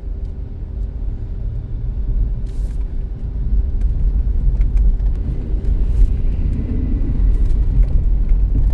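In-cabin drive noise of a 2005 Caravan minivan on a snowy road: a steady low engine and road rumble that grows louder as the van picks up speed.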